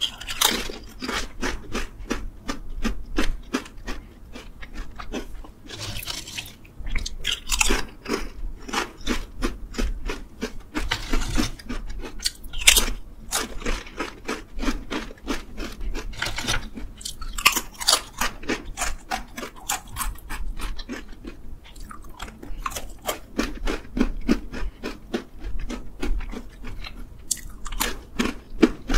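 Crunching and chewing of thin purple sweet potato chips, a continuous run of crisp cracks with a few brief quieter spells.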